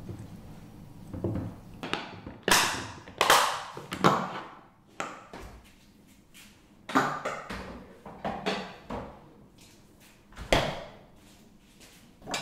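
A run of sharp clacks and thumps as a refrigerator door is opened, a container of kimchi is set inside, and the door is shut with a firm thump near the end.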